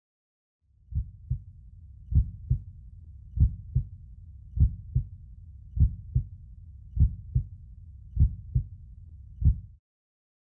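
A slow heartbeat: paired low thumps, lub-dub, about one pair every 1.2 seconds over a steady low rumble, eight beats in all, starting about a second in and stopping just before the end.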